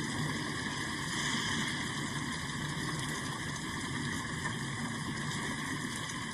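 Steady rain, an even hiss with no change in intensity.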